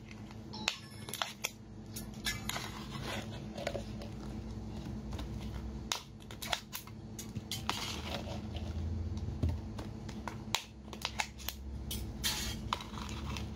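Sauced crayfish tails being shaken out of a glass jar onto a plate: irregular clicks and taps of the jar with soft wet plops as the tails land, over a low steady hum.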